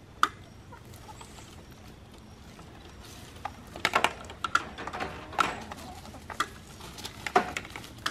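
Hens clucking in short, scattered calls, starting about three and a half seconds in and coming more often toward the end.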